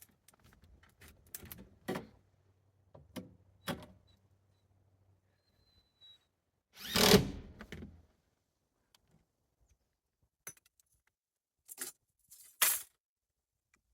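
Scattered clicks and knocks from handling the stovepipe and its wall brackets, with one louder, noisier burst lasting about a second about seven seconds in and a few more sharp knocks near the end.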